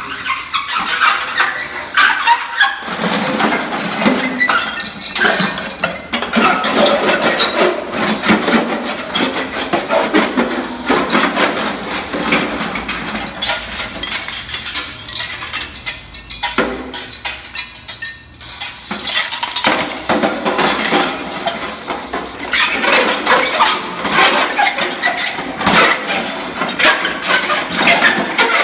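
Dense, harsh scraping and clanking of objects worked by hand inside a large old brass pot, full of sharp clicks. The noise thins briefly about two-thirds of the way through, then picks up again.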